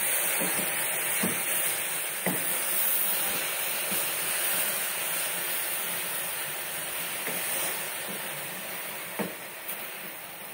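Chopped greens sizzling in oil in a pot on low heat, stirred with a wooden spoon that knocks against the pot a few times. The sizzle fades slowly toward the end.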